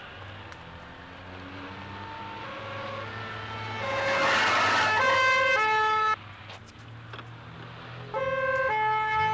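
Two-tone police car siren alternating between two notes over a low engine hum, growing louder with a rush of passing noise about four seconds in. It cuts off suddenly about six seconds in and comes back loud near the end.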